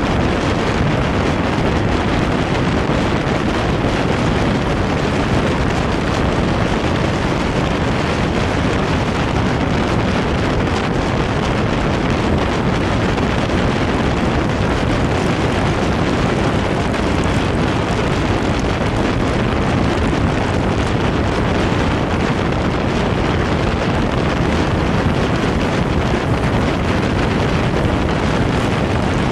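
Steady wind rushing over the microphone of a camera riding on a motor scooter at road speed, with the vehicle's rumble underneath.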